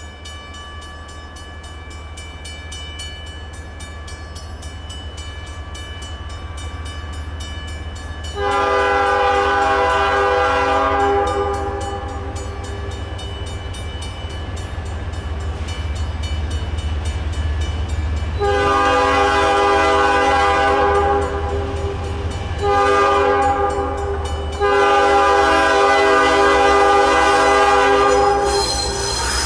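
Norfolk Southern diesel locomotive approaching, its engine rumble growing louder, while its air horn sounds four blasts: long, long, short, long, the standard signal for a grade crossing.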